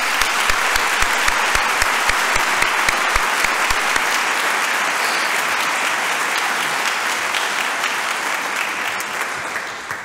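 A crowd applauding steadily, then fading out near the end. In the first few seconds, sharper single claps sound close to the podium microphone.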